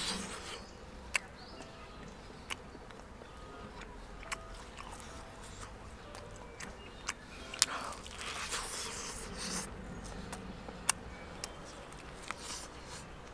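Close-up eating sounds at a whole spit-roasted rabbit: breathy puffs of blowing on the hot meat at the start and again about halfway through, sharp clicks scattered throughout, and biting into the meat near the end.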